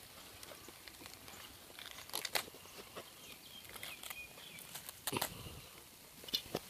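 Small open fire of twigs and dry grass crackling, with sharp cracks and knocks as rounded lumps on the fire are moved by hand. The loudest cracks come in short clusters about two, five and six seconds in.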